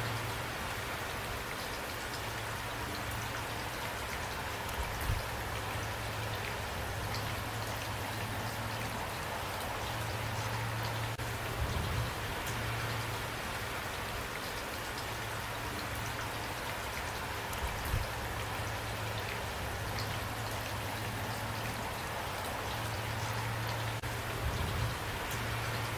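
Steady rain falling: an even hiss with individual drops ticking through it, over a low steady hum with a few soft low thumps.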